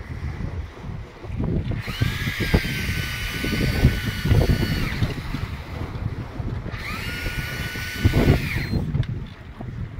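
A big-game fishing reel whining twice as line runs through it under load from a large fish: a three-second and then a two-second high, steady whine, each sliding up into its pitch at the start. Wind and sea rumble underneath.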